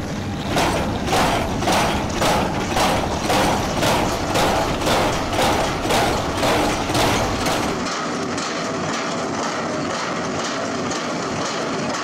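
Crawler tracks of an XCMG XR150D rotary drilling rig clanking in a steady rhythm, about two clanks a second, over the running machine. Near eight seconds in the sound turns thinner and the clanks fainter.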